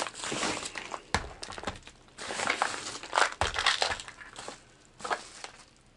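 Yellow padded mailer crinkling and tearing as it is pulled open by hand, with a sharp click and a heavier knock as a clear plastic tackle box is set down on the table.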